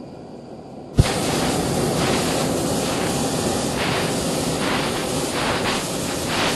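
Hot-air balloon's propane burner firing: a sharp click about a second in as the valve opens, then a loud, steady rushing hiss of the burner flame.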